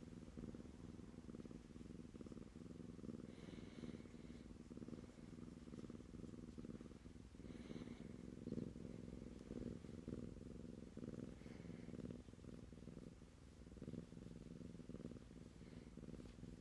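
Tabby kitten purring steadily while being stroked, a soft continuous low rumble, with a few brief faint rustles every few seconds.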